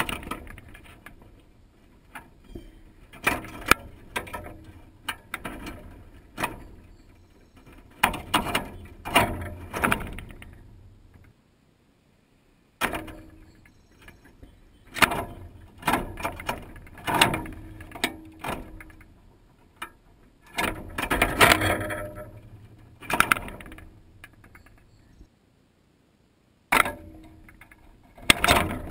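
Blue jay pecking and tugging at in-shell peanuts in a wire-mesh feeder right by the microphone: uneven bursts of sharp clicks, knocks and rattles of shells against the metal mesh. The sound stops twice for about a second and a half.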